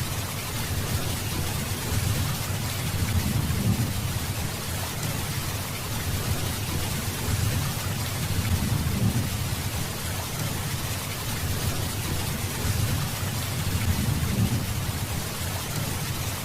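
Steady rain hissing, with low rolling thunder that swells and fades several times.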